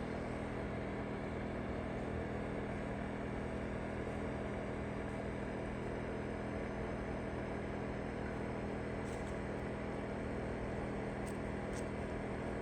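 Powersmart 2500 inverter generator running steadily at fixed speed with eco mode off, an even, unchanging engine hum.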